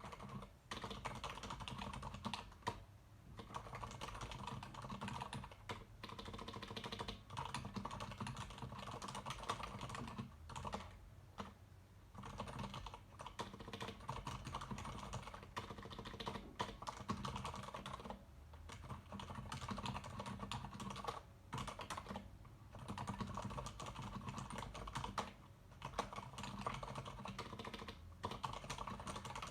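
Steady typing on a Leopold FC900R PD mechanical keyboard with Cherry MX Silent Red linear switches: fast, dense runs of soft, damped key presses with short pauses between bursts.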